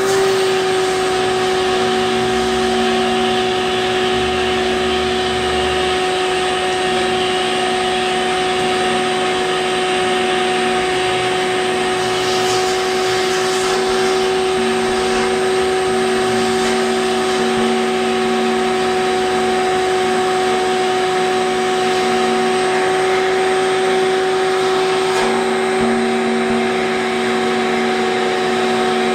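A motor running steadily, with a constant hum and a higher overtone above it.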